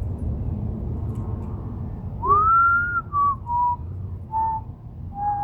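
A person whistling a short descending tune: one note sliding up and held, then four shorter notes stepping down in pitch, starting about two seconds in.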